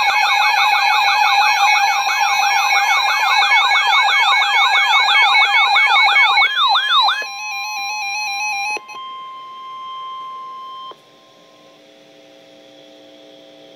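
Emergency alert tones: a rapid electronic siren sweep, rising over and over several times a second above a steady tone, for about seven seconds. It gives way to a single steady 1050 Hz warning alert tone that cuts off abruptly about eleven seconds in. A quiet steady electronic drone follows.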